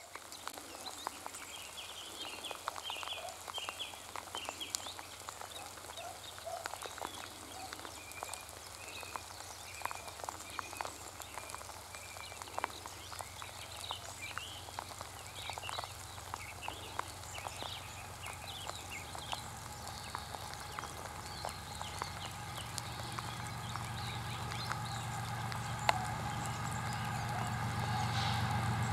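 Small birds chirping, while the low rumble of a TE33AC diesel locomotive's V12 engine comes in about two-thirds of the way through and grows steadily louder as the freight train approaches.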